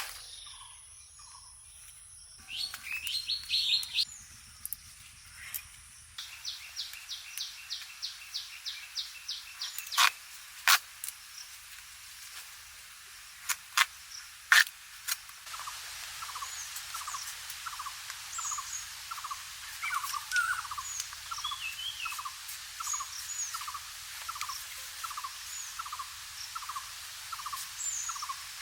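Several birds calling and chirping, with a few sharp clicks in the middle. From about halfway on, one bird repeats a short chirp steadily, somewhat more than once a second, while others call higher above it.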